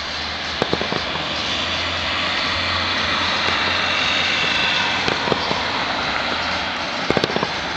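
Fireworks display: a steady rushing hiss that swells toward the middle, with sharp pops about half a second in, around five seconds and again near the end.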